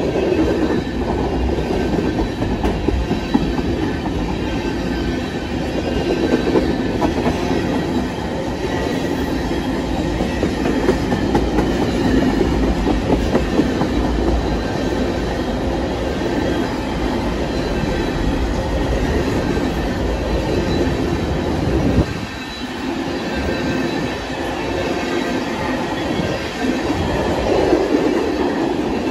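A freight train of tank cars rolling steadily past, steel wheels clattering over the rail joints. The deep rumble drops away suddenly about three-quarters of the way through.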